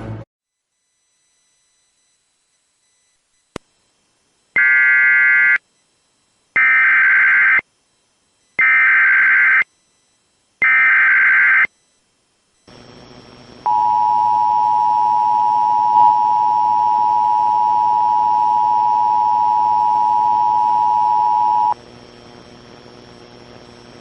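Emergency Alert System SAME header: four one-second bursts of shrill warbling data tones, about a second apart. After a moment of hiss, the two-tone EAS attention signal sounds as one steady tone for about eight seconds and cuts off sharply, leaving low hiss and hum before the voice message.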